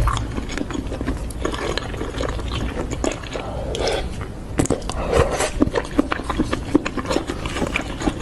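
Close-miked mukbang eating: someone chewing and biting instant noodles and marinated chicken, with many irregular wet mouth clicks and smacks.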